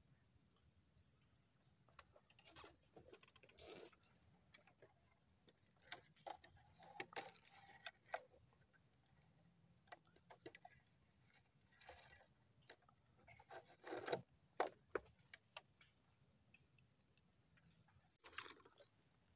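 Faint, irregular handling noises: light knocks, clicks and rustles of rope and gear being worked on a bamboo fishing platform, loudest in two clusters about six and fourteen seconds in.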